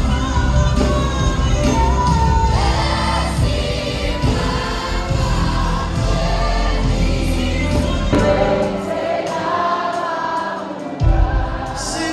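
Live gospel music: a choir and lead singers with a full band, with the bass dropping out briefly past the middle before coming back in.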